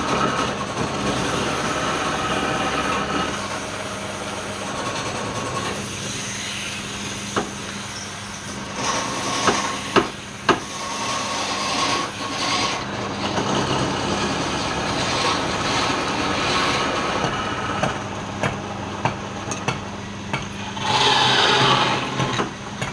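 Wood lathe running with a steady motor hum while a tool scrapes and cuts the spinning wood. A few sharp knocks come around the middle, and the cutting gets louder near the end.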